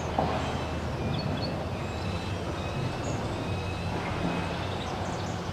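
Steady low engine hum, with faint, short high bird chirps scattered over it.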